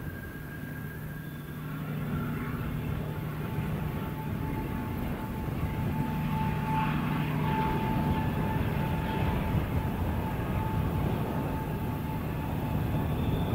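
Diesel-hydraulic locomotive ÖBB 2143 with its SGP twelve-cylinder engine working hard under load as it hauls a train uphill. A steady low engine drone grows louder as the locomotive approaches, with a high steady whine over it for a few seconds midway.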